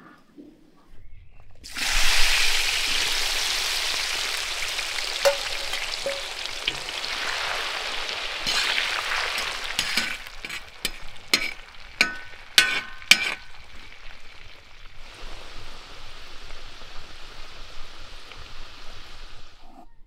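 Cut potato sticks frying in hot oil in a wide black pan, with a loud sizzling that starts suddenly about two seconds in and slowly settles. A run of sharp clicks of a utensil against the pan comes around the middle.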